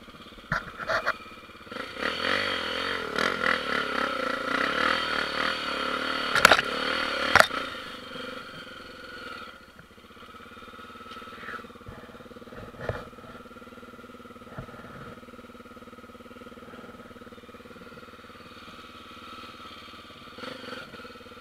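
Off-road motorcycle engine working hard and revving up and down for several seconds, with two sharp knocks near the end of that stretch, then running at a steady, lower note for the rest.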